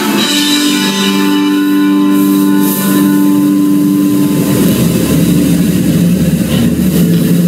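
Rock music with guitar, a chord ringing out with held notes, giving way about four and a half seconds in to a rough, steady rumbling noise.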